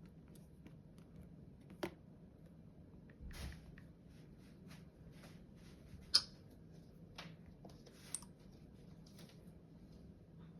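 Faint scattered clicks and taps over a low steady hum, with the sharpest click a little past halfway.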